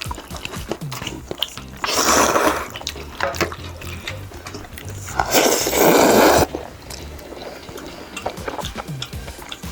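Two long, noisy slurps of jjajangmyeon noodles, about two seconds in and again around five to six seconds in, with small chewing and utensil clicks between them.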